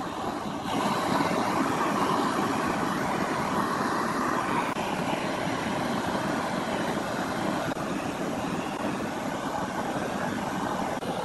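Gas blowtorch flame blowing steadily against the wood turning on a running lathe, scorching its surface. The sound grows louder about a second in.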